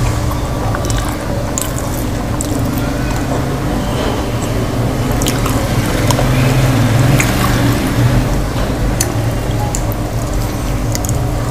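Fingers tearing roti and scooping wet aloo gobi curry off a plate: soft wet squelches and scattered small clicks, over a steady low hum.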